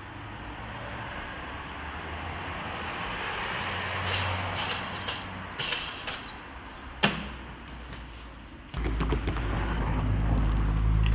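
Inline skate wheels rolling on pavement, growing louder over the first few seconds, with a few sharp clacks, the loudest about seven seconds in. Near the end a steady low rumble starts abruptly.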